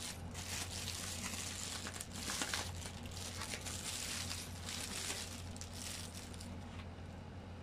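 Parcel packaging crinkling and rustling as it is opened by hand, in irregular bursts, louder about two and a half seconds in.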